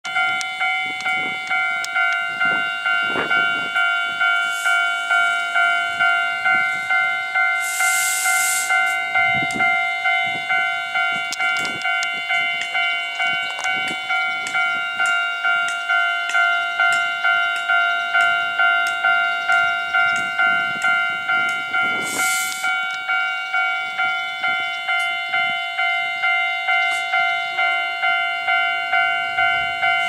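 Japanese railway level-crossing electronic warning bell ringing in a steady, even rhythm of repeated ringing tones: the crossing is closed and warning of an approaching train. Two brief hisses cut in, about eight seconds in and again past twenty seconds.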